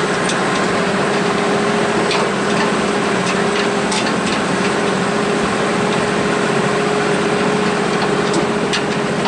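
Engine of a vehicle under way, running steadily with an even droning pitch, with a few sharp clicks and knocks from the load bed over it.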